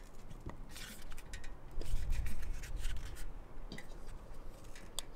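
Small plastic clicks and rubbing from a magnetic security camera being pulled off its plastic wall mount and the mount's swing-out arm being handled, with a brief low rumble about two seconds in.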